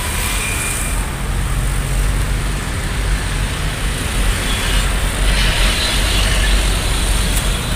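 Road traffic noise: passing cars and trucks with a steady low rumble of engines.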